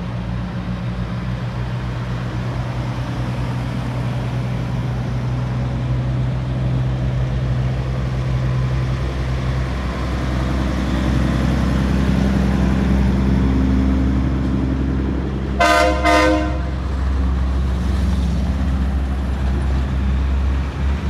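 Heavy diesel engines of semi tractors, among them a Kenworth W900, rumbling as they pull slowly past, the revs rising a little before the middle. About a second after that, two short blasts of a truck air horn.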